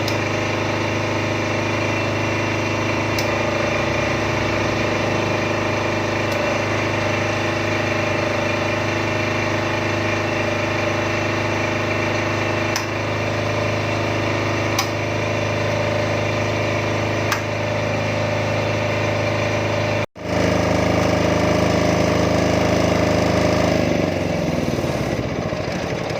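Supra XTD7700 silent-type diesel generator set running steadily at constant speed. After a brief cut it continues, and near the end its pitch sinks.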